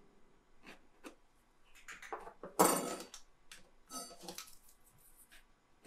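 Knife cutting into the crisp, dry crust of a baked choux pastry puff: scattered small crackles and scrapes, with one loud crunch about two and a half seconds in.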